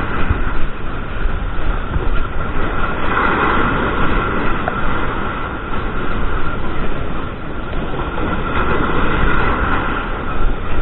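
Strong gusting wind buffeting the microphone, a loud continuous rumble and rush that swells and dips.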